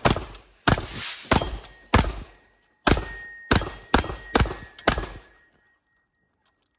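A rapid string of about nine shotgun shots over roughly five seconds, each with a short echoing tail and a thin ringing tone lingering after several of them, then the firing stops.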